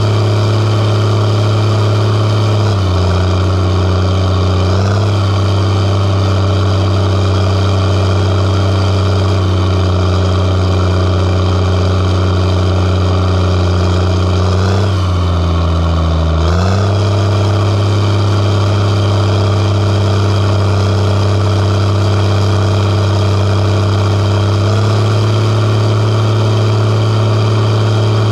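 Diesel engine of a John Deere logging machine running steadily at working speed. Its pitch sags slightly about three seconds in, dips further for a second or two around the middle, then picks back up, rising a little again near the end.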